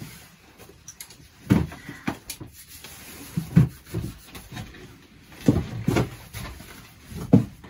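Split firewood being handled at a wood stove: scattered wooden knocks and clunks, about eight over several seconds, as pieces are picked up and set down.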